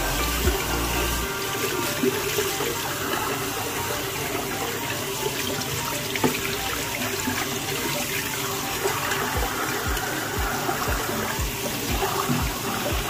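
Tap water running into a sink and splashing over a plastic vacuum-cleaner filter part being rinsed, with water streaming out through its holes.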